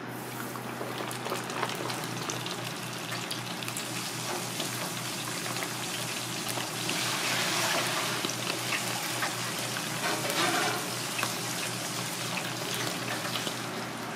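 Floured mackerel pike (Pacific saury) sizzling in a deep fryer's hot oil: a dense crackling hiss that swells louder around the middle, over a steady low hum.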